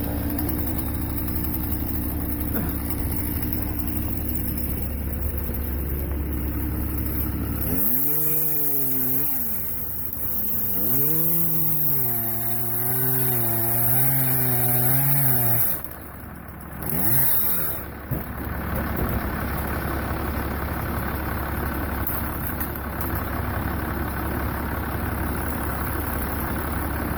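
First-generation Dodge Cummins truck's inline-six diesel engine running at idle, then revved up and down under load twice in the middle, with one more short rev just after, before it settles back to a steady idle.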